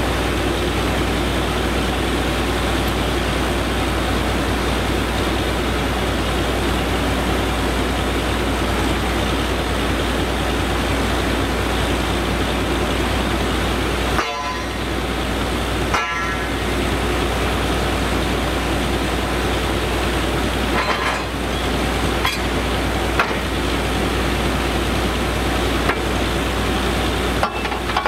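Borewell drilling rig's engine and ELGI air compressor running loud and steady. A few sharp clanks come through as the drill pipe is handled at the wellhead, mostly in the second half.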